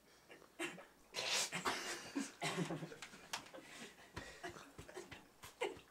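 Teenage boys' stifled, breathy laughter in short bursts of breath, with a few soft clicks near the middle.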